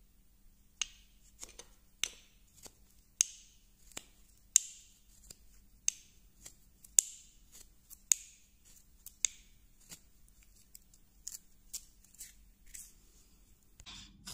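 Carving knife slicing chips from a small block of wood by hand: a steady series of short, crisp cuts, about two a second, some much louder than others, starting about a second in.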